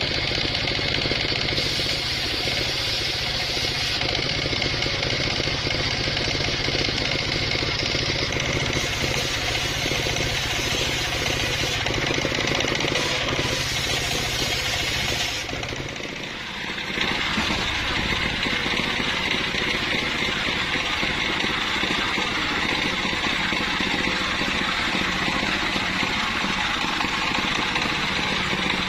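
Engine-driven circular sawmill saw running steadily as its blade cuts sengon (albasia) wood: a constant engine drone under the whine of the spinning blade. The sound drops away briefly a little past halfway, then the same running saw carries on.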